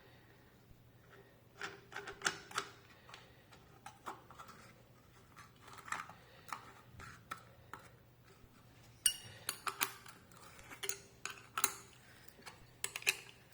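Scattered light metallic clicks and clinks as a disc and its flange nut are fitted onto an angle grinder's spindle. The clicks are bunched more densely about nine seconds in and again near the end.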